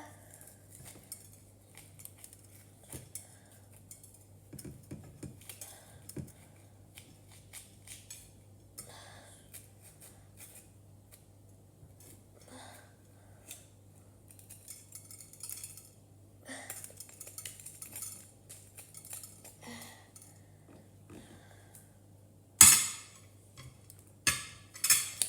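Knife and fingers working on a plate while seeds are scraped out of a cut bell pepper: scattered soft scrapes and taps of cutlery on crockery, with one sharp clatter near the end followed by a couple more clinks.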